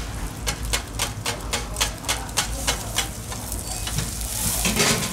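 Metal bench scrapers clacking against a flat-top steel griddle in quick, even taps, about four a second, while an egg omelette is rolled. Near the end there is a louder scrape with a burst of sizzling over the steady hiss of the hot griddle.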